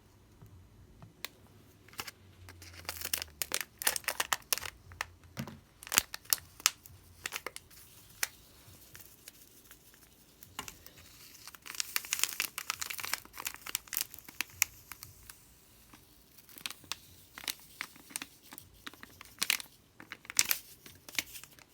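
A packet of cloud dust crinkling and rustling as it is handled and cut open with scissors, with many sharp clicks throughout. The crinkling thickens into a dense stretch about halfway through and again near the end.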